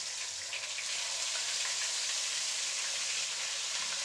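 Ginger-garlic paste frying in hot oil with whole cloves and cardamom in a wok: a steady sizzle as the paste's moisture hits the oil, stirred with a wooden spatula.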